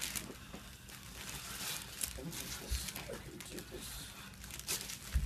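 Rustling and crinkling of a fabric blanket being handled in bed, in irregular scratchy bursts, with a few faint mumbled vocal sounds in the middle and a soft low thump near the end.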